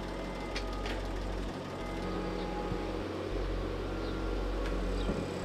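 Engine of a truck-mounted drilling rig running steadily at a low hum, with a few light clicks and knocks from the work.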